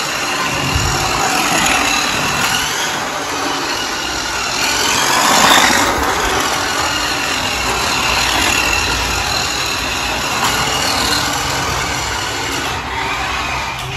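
Toy remote-control racing car driving across a tiled floor, its whine rising and falling in pitch as it speeds up and slows, loudest about five and a half seconds in.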